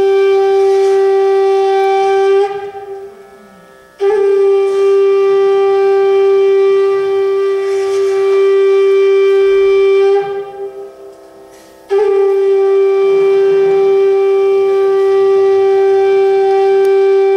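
Conch shell (shankha) blown in three long, steady blasts on one unchanging note, each tailing off with a brief waver, with short pauses between them.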